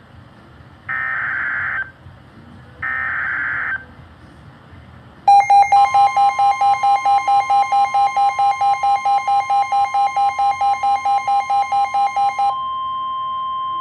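Emergency Alert System alert opening: the last two of three one-second SAME header data bursts, then an attention signal. The attention signal is a buzzy tone pulsing about five times a second over a steady higher tone. The pulsing stops about 12½ seconds in, and the steady tone carries on alone.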